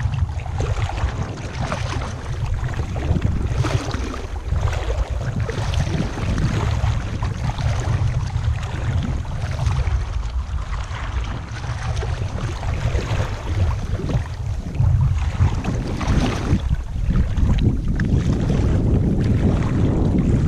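Shallow seawater sloshing and splashing around legs wading through it, in uneven strokes, over a steady low wind rumble on the microphone.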